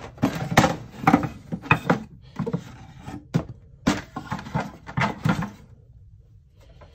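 Wooden beehive frames knocking and clacking against each other and the wooden hive box as they are set in place, a dozen or so irregular sharp knocks that die away near the end.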